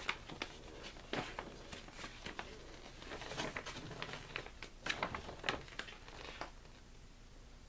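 Paper rustling and crinkling with scattered light clicks and taps: a folded paper poster being handled and opened out.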